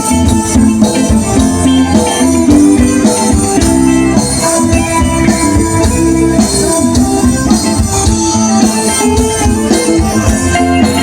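Khmer romvong dance music with a steady percussion beat.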